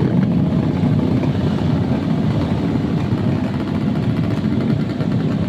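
Vehicle engine running steadily through its exhaust, a dense even rumble with no separate pops or bangs.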